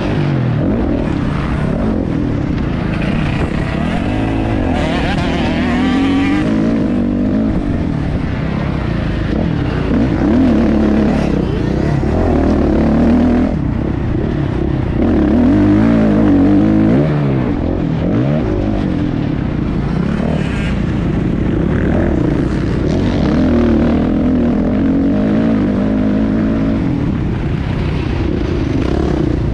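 Motocross dirt bike engine riding a track, its revs rising and falling repeatedly with the throttle through corners and straights.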